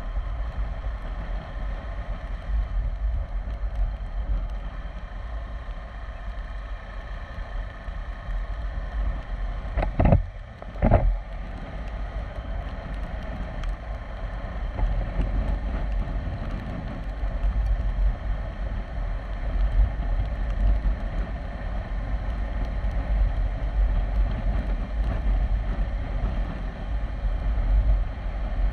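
KTM 390 Adventure's single-cylinder engine running under way, with wind buffeting the microphone. Near the middle come two sharp thumps about a second apart.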